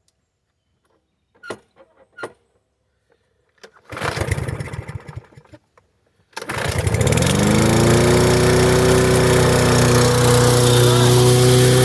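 Snapper self-propelled push mower's small engine cold-started by hand. After a few faint clicks it cranks over about four seconds in, catches a couple of seconds later, and speeds up to a steady run.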